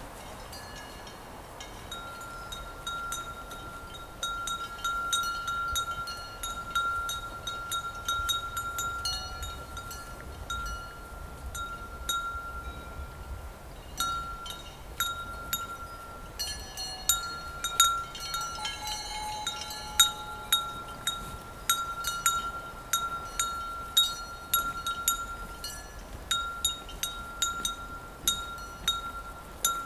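Bells on a herd of cows clanking irregularly as the cows move and graze. One bell's tone rings on almost throughout, and the sharp clanks come thicker in the second half.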